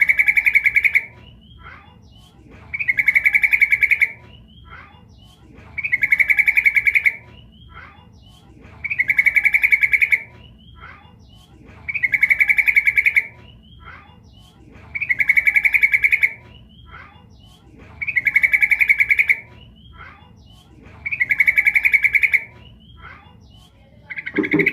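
Female yellow-vented bulbul calling: a rapid, chattering trill about a second long, repeated evenly about every three seconds with fainter chirps between, the call a female gives to draw a male. A short low thud comes just before the end.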